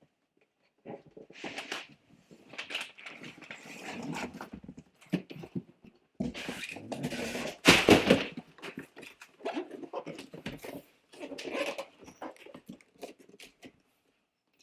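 Packaging being handled and unpacked from a box: irregular rustling and crinkling with scattered knocks, and a louder rustle about eight seconds in.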